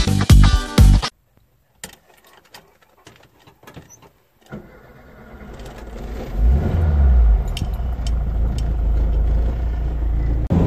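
Guitar music cuts off about a second in. A few faint clicks of keys follow, then a Volkswagen Type 2 bus's air-cooled flat-four engine cranks and catches about four and a half seconds in, revs briefly and settles into a steady run.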